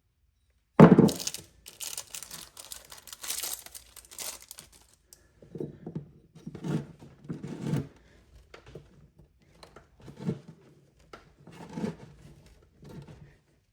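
Paper or plastic crinkling and tearing for about four seconds, starting with a sudden loud rustle. It is followed by several dull knocks and handling noises of parts on a workbench.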